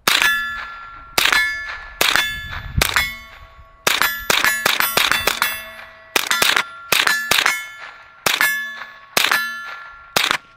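AR-style rifle fired in a quick, uneven string of more than a dozen shots. Each shot is followed by the ringing clang of a steel target being hit.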